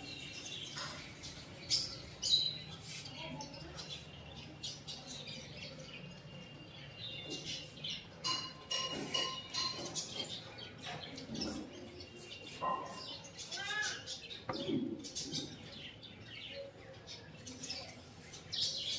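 Birds chirping and calling, with many short chirps and a few brief whistled notes.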